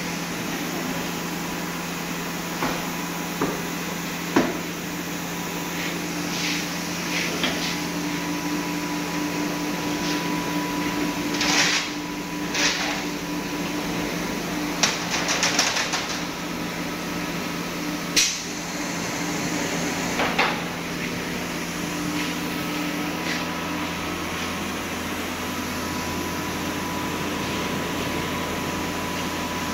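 Packaging machine humming steadily, with scattered clicks and knocks of trays and parts being handled on it and a few short hisses.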